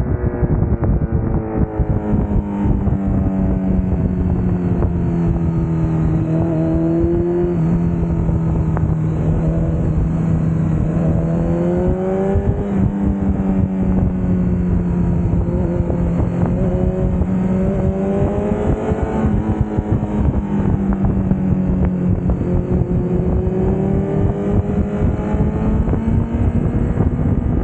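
Honda CBR1000RR's inline-four engine pulling the bike along at road speed, its revs rising and falling several times as the rider works the throttle through the bends, under a steady rush of wind.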